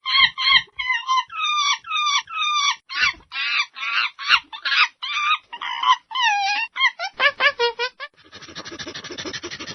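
Monkey calling: a rapid run of short, high squealing calls, each bending in pitch, for about eight seconds, then a harsh, fast, breathy chattering near the end.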